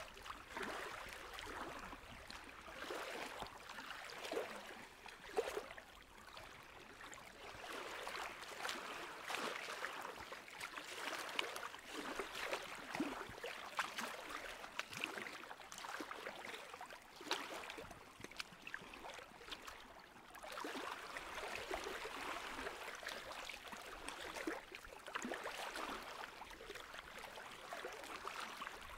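Water running and gurgling, an irregular splashing trickle that rises and falls in level.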